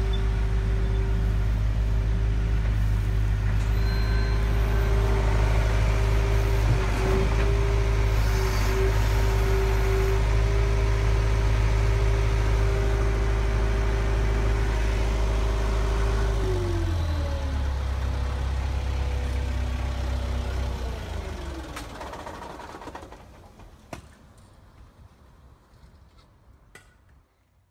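Radio-controlled hydraulic model excavator running: a steady motor hum with a held whine over a deep rumble. Its pitch drops in two steps, about 17 and 21 seconds in, before it dies away.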